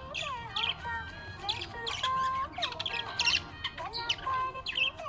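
Budgerigars chirping and warbling in a rapid, continuous chatter of short sweeping notes.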